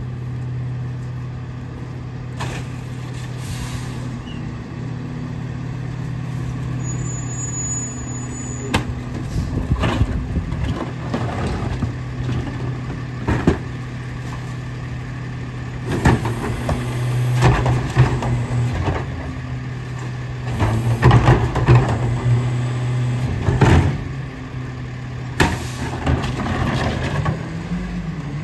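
Battle Motors garbage truck idling with a steady low hum, while recycling carts are tipped into the McNeilus rear-loader hopper with knocks and clattering of cans and cardboard falling in. The engine and hydraulics run louder in two spells in the second half as the packer works the load.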